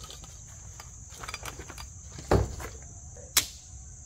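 A chalk line snapped against the shed wall's sheathing: a dull thud a little over two seconds in and a short sharp crack about a second later, over steady insect chirping.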